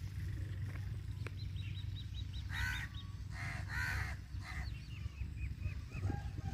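A crow cawing three times in quick succession, starting about two and a half seconds in. Around the caws, a run of rapid high chirps from a small bird, over a steady low rumble.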